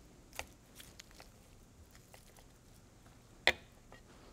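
Cooked chicken meat being pulled off the carcass by hand on a wooden cutting board: faint soft ticks and squishes, then one sharp knock on the board about three and a half seconds in.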